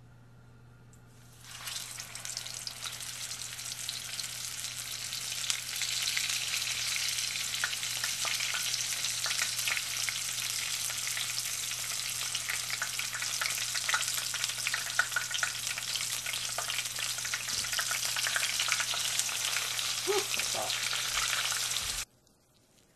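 Breaded striped bass fillet frying in hot oil in a skillet: steady sizzling with many small crackles. It starts about a second and a half in and cuts off suddenly near the end.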